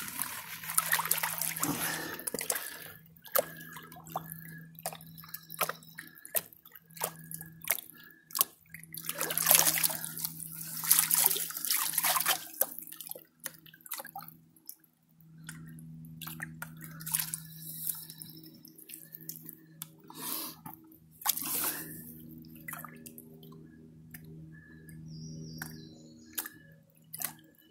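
Plastic gold pan being swirled and dipped in a shallow creek: water sloshes and pours out of it in bursts, with many small clicks of gravel rattling against the pan, as the lighter material is washed off the pay dirt. A faint steady low hum runs underneath.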